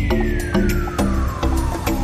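Background music with a steady beat and held chords, overlaid by a long electronic sweep that falls slowly in pitch.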